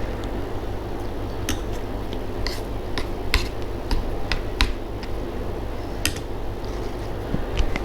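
Close-up eating sounds: a scattering of sharp clicks and smacks, about eight in all, over a steady low hum.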